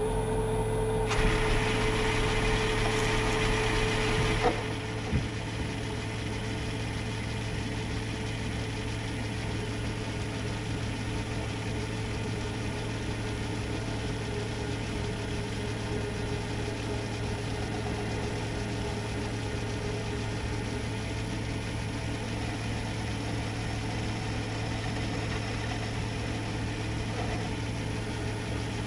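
Myford lathe running steadily while turning down a metal shaft. About a second in, a brighter hiss of the tool cutting comes in over the motor hum and stops about four seconds in, after which the lathe runs on alone.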